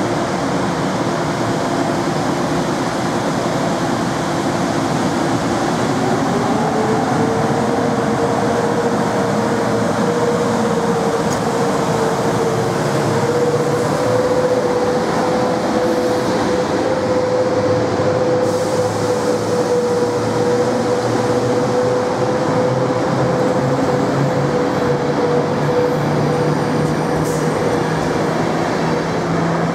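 EP09 electric locomotive pulling a passenger train away from a standstill, passing close by, followed by its coaches rolling past. A steady whine from the locomotive rises in pitch about six seconds in and then holds over the rumble of the wheels.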